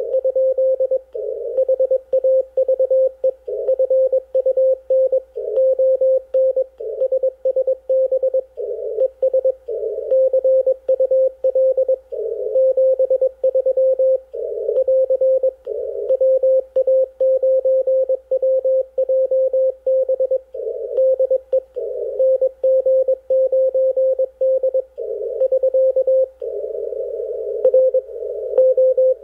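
Morse code on the 80-metre band heard through an Icom IC-746PRO transceiver in CW mode: a steady mid-pitched tone keyed on and off in dots and dashes, over band hiss passed by the narrow CW filter.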